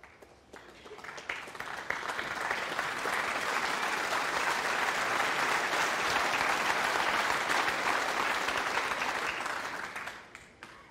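Snooker audience applauding a shot: the clapping builds over the first two seconds, holds steady, then dies away near the end.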